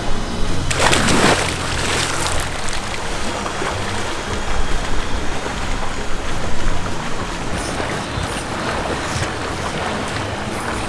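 Pool water splashing and rushing as a swimmer slides in and swims front crawl, with a louder splash about a second in.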